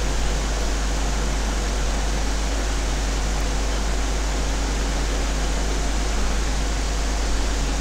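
Steady background noise: an even hiss with a strong low hum underneath, unchanging throughout.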